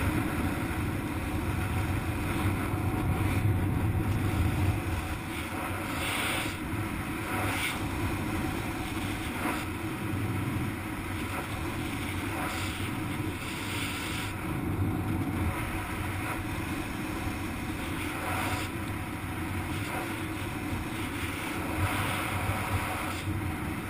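Wind rushing over a point-of-view camera's microphone while flying under an open parachute canopy: a steady low rumble that swells briefly now and then.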